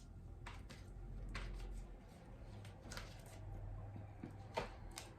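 Tarot cards being handled on a table: several soft clicks and light taps at irregular intervals over a low steady hum.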